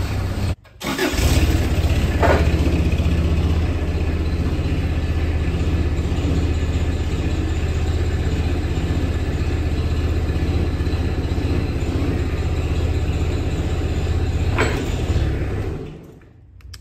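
Swinger 1600 loader's engine running steadily under hydraulic load as its mast is raised to full height, dying away near the end.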